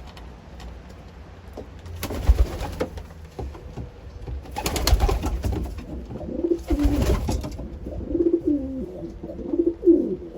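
Racing pigeons cooing in a small loft, repeated low rolling calls that start a little past the middle and go on to the end. Earlier come three short bursts of rustling noise.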